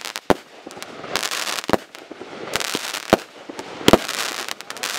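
Aerial fireworks going off: several sharp bangs of shells bursting about a second apart, the loudest a double bang near four seconds in, with stretches of crackling between them.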